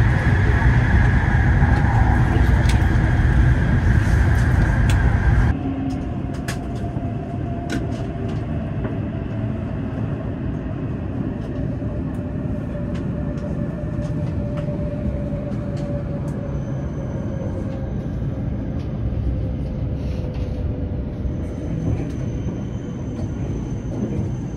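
Hokuriku Shinkansen train running, a loud rumble with a steady high whine that drops off abruptly about five seconds in. Quieter running noise follows, with a whine slowly falling in pitch as the train slows for the terminus.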